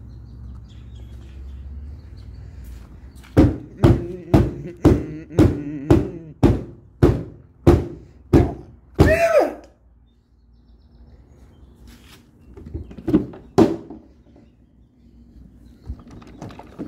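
A run of about a dozen loud, dull thumps at a steady pace of roughly two a second. A short sound with a sliding pitch follows, then a few more thumps.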